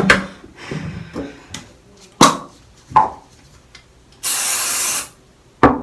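Spray from a hand-held bottle: one steady hiss lasting about a second, a little past the middle. Before it come a few sharp clicks and knocks, and another near the end.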